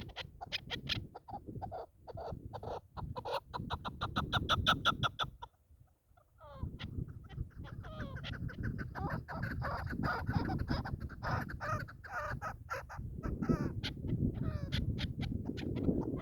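Chukar partridges calling: fast runs of clucking 'chuk' notes, several a second, that break off briefly about six seconds in and start again.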